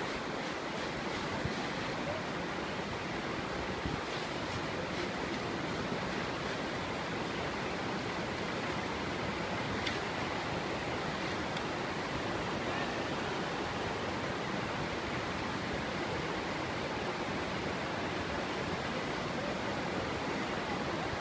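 Whitewater river rapids rushing steadily over rocks.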